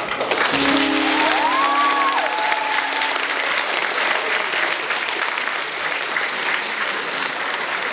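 Audience applauding steadily after a stage performance ends.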